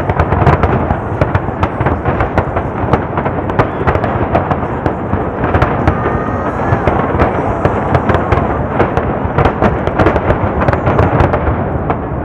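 Aerial fireworks finale: a dense, continuous barrage of shell bursts and crackling, many sharp bangs a second over a rumbling roar, easing off near the end.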